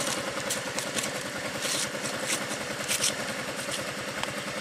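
Engine idling steadily with fast, even firing pulses, and a few faint clicks and scrapes over it.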